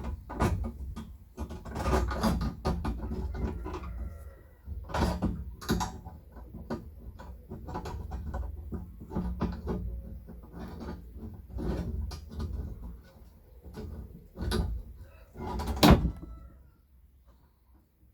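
Irregular knocking, clattering and scraping of hands and tools working on a fence bar, with a sharp, loud knock about sixteen seconds in before it falls quiet.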